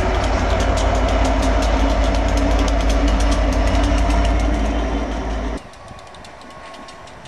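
Class 67 diesel locomotive passing close by under power: a loud, steady engine rumble with a rapid, even ticking over it. The sound drops sharply about five and a half seconds in as the locomotive moves away, leaving a fainter rumble.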